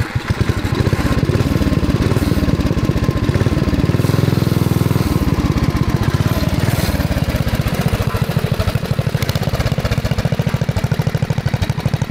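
Big-block Briggs & Stratton engine on a mini bike, running steadily at idle just after starting, with a brief rev about four seconds in.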